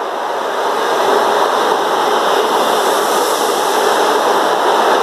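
Coaches of a Great Western Railway High Speed Train (InterCity 125) passing close by: a steady, loud rush of wheels on rail, building slightly in the first second.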